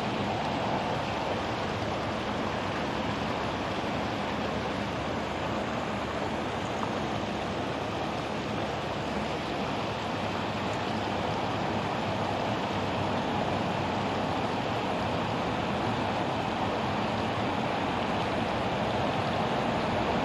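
Steady rushing of water pouring through a spillway into a pool, an even noise that does not change.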